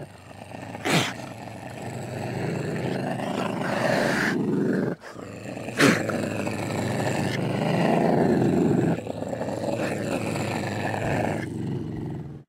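Ocelot growling in a long, rough, continuous growl, with two short, sharp, loud snaps about a second in and about six seconds in, and a brief break just before the second. It cuts off suddenly at the end.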